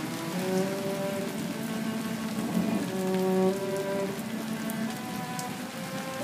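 Steady rain falling and splashing on a wet concrete floor and its puddles. Soft held musical notes that change every second or so sound underneath.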